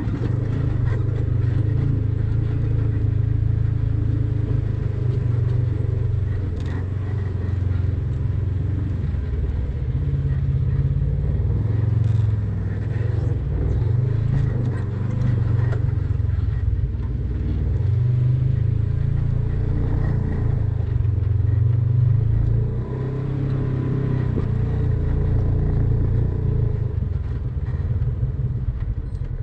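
Polaris RZR side-by-side's engine running at trail speed, rising and easing with the throttle, with a few knocks and rattles from the vehicle over rough dirt.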